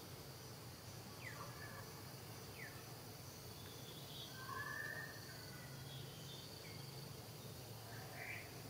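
Faint outdoor ambience: a steady high insect drone with a low hum under it, and a few short chirping calls, the longest about four and a half seconds in.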